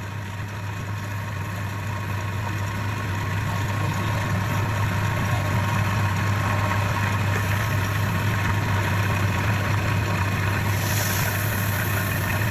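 Wood lathe's electric motor running with a steady low hum, growing a little louder over the first few seconds.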